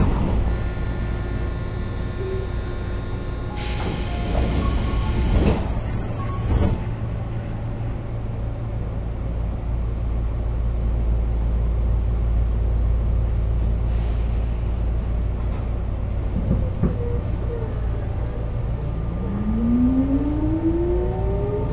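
Tobu 9000 series train car (MoHa 9204) at a standstill with a steady low hum, broken by two short bursts of noise in the first seven seconds. Near the end a rising whine climbs steadily as the train starts off: the chopper control's low-speed sound, which on this car changes in summer to a tone like a Hankyu 2200 chopper car or a 201 series.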